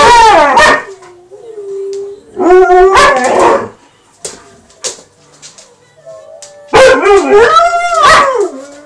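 Two Alaskan Malamutes howling back and forth in a 'woo-woo' sing-song. There are three loud bouts of howls whose pitch bends up and down, with a softer held whine between the first two.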